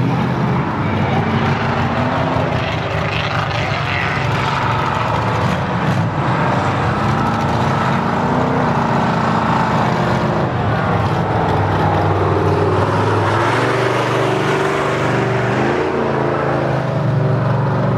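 Lifted mud truck's engine running loud and steady as the truck drives along the dirt track, its pitch rising and falling as the throttle is worked, dropping lower for a while and then climbing again near the end.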